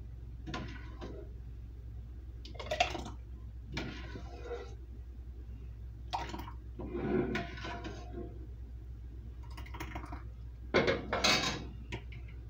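Metal ladle scraping and clinking against the inside of a stainless pot as hot raspberry-peach jam is scooped into a plastic canning funnel on a jar: a string of short scrapes and knocks, with the loudest clatter near the end.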